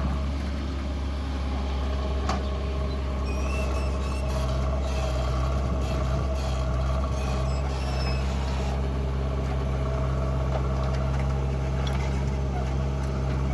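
Diesel engine of a JCB 3DX backhoe loader running steadily while it works, with a higher hiss joining in for a few seconds in the middle.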